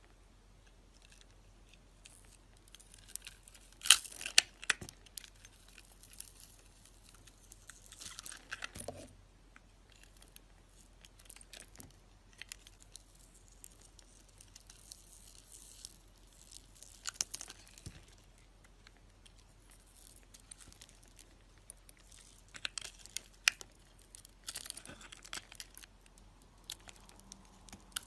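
A blade carving and scraping a bar of soap: crisp crackling scrapes and cuts in scattered bursts, the sharpest about four seconds in and more clusters later.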